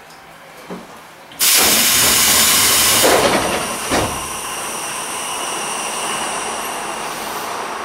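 Tobu Railway commuter train's pneumatic doors opening: a sudden loud rush of air about a second and a half in, a knock about four seconds in, then a softer steady hiss.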